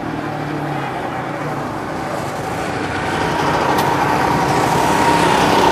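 Motocross bike engine running as the bike rides toward the listener, growing louder from about halfway through.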